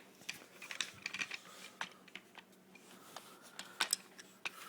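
Small metal clicks and scrapes of an AR-15 charging handle being pulled back and worked down out of its track in the upper receiver: a scatter of light clicks, with two sharper ones close together about three-quarters of the way through.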